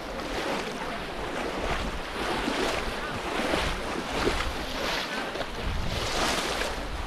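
Water splashing and sloshing as several people wade through shallow floodwater, plunging bamboo polo fish traps into it, with wind rumbling on the microphone.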